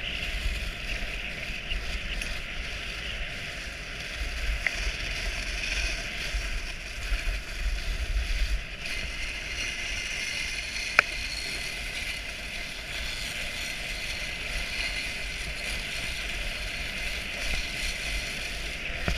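Dog sled moving along a snow trail: a steady hiss of the runners over snow, with a low rumble of wind on the microphone that swells and fades. A single sharp click comes about eleven seconds in.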